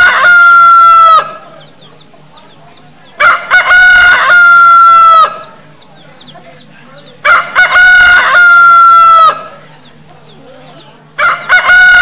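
Rooster crowing loudly, the same cock-a-doodle-doo repeated about every four seconds: two short notes and then a long held note that drops in pitch as it ends.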